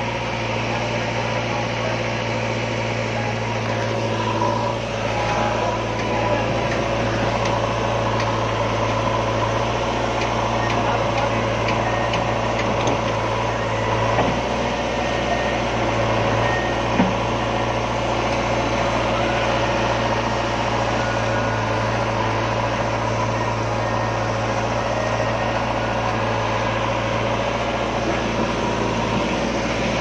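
Diesel engine of a JCB 3DX backhoe loader running steadily while it digs and loads soil, with a tractor engine running alongside. A couple of short knocks come about halfway through.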